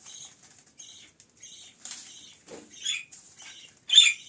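Budgerigars in a cage making short, high chirps about every half second, with a louder, sharper call about four seconds in.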